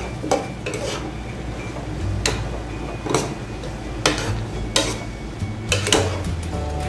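Metal spoon stirring diced carrots and chopped beef lungs in a nonstick pan, scraping and knocking against the pan about once a second. Under it, a steady hiss from the simmering mixture.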